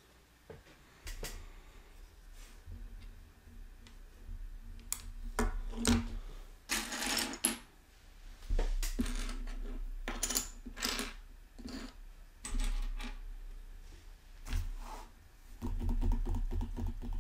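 Plastic LEGO pieces clicking and rattling as they are handled and fitted together, in irregular bursts, with a longer rattle of loose pieces about seven seconds in and low bumps against the table.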